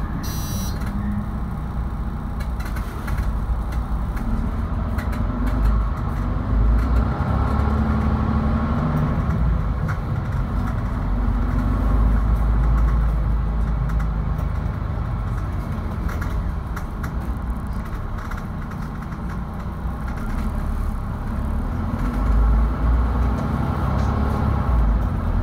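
Mercedes-Benz Citaro II city bus engine running while the bus drives along, heard from inside the passenger cabin as a steady low drone that swells a little at times.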